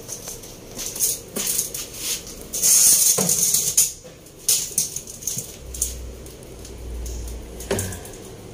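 Metal hand tools and parts clinking and rattling in irregular knocks and clicks, with a loud rasping burst lasting about a second near three seconds in.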